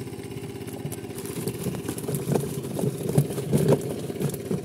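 A small engine idling steadily, with irregular knocks and wet slaps from about a second and a half in as a plastic tub of small fish is tipped out into a wicker basket.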